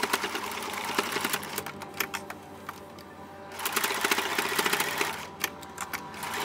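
Household sewing machine stitching in two runs. It slows to a lull a little after two seconds in and runs again about a second later, then stops with a few clicks near the end.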